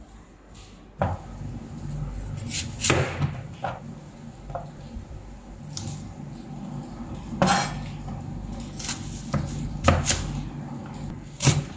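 Irregular knocks and clicks of a kitchen knife and shallots being handled and cut on a plastic cutting board, starting about a second in, over a steady low hum.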